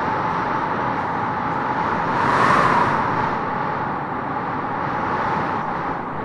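Wind blowing steadily, swelling into a stronger gust about two and a half seconds in and then easing back.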